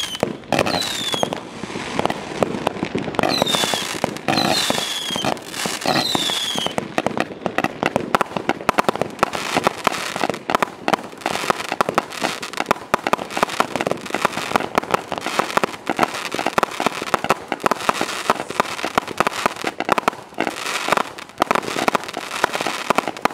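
Hallmark Ruby Phoenix 500-shot firework cake firing continuously. A few short falling whistles sound in the first several seconds, then a dense run of crackling pops and bangs.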